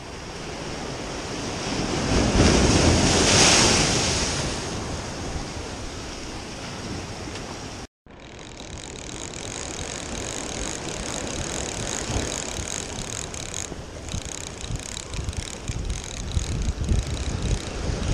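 Sea surf washing and breaking against a rocky breakwater, one wave swelling to its loudest about three seconds in. The sound cuts out for a moment near the middle. Then comes steady surf with wind buffeting the microphone, gustier near the end.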